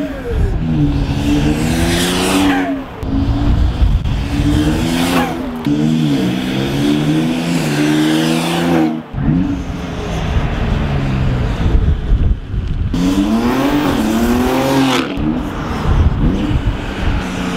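BMW X3 M's twin-turbo inline-six, fitted with loud aftermarket intakes, making hard acceleration pulls. The engine note climbs, drops at each gear shift, and sweeps down in pitch several times as the car passes.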